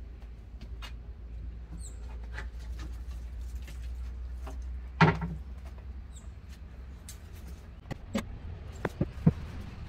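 Scattered knocks and scrapes of a corrugated roofing sheet being lifted off a concrete tank and propped against its side. There is one loud thump about halfway through and a quick cluster of sharper knocks near the end.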